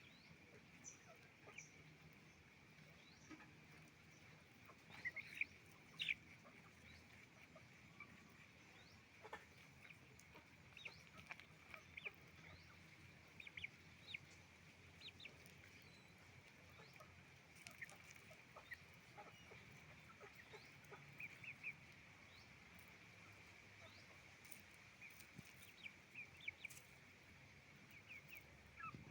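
Faint chicken-farm flock: hens clucking and calling in short, scattered notes over a steady high-pitched background chorus, with a few louder calls about five to six seconds in.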